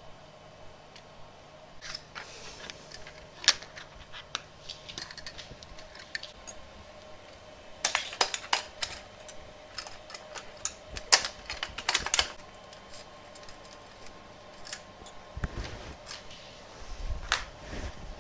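Small parts and wiring being handled by hand on a workbench and a metal rail frame: scattered sharp clicks and taps, coming thickest as a rapid cluster in the middle, with a couple of dull thumps near the end. A faint steady hum runs underneath.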